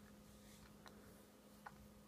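Near silence: room tone with a faint steady low hum and three or four faint brief ticks.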